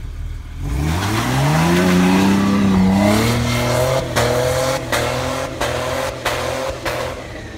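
Jeep Wrangler engine revving hard as it pulls away and ploughs through deep snow, its big mud tyres spinning and throwing snow. The engine note climbs over about a second, holds high, then dips briefly about five times as the tyres fight for grip.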